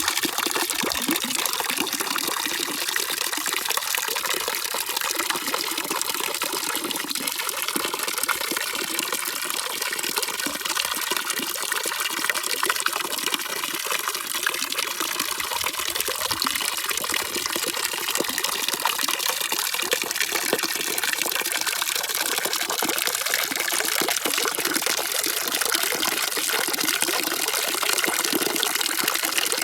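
Steady, unbroken rushing of running water, like a tap running full, with a bright hiss and no change in level.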